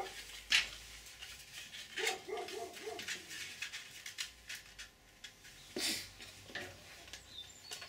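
Light clicks and knocks of thin 3D-printed plastic duct parts being handled and set down on a workbench, with a short wavering voice-like whine about two seconds in.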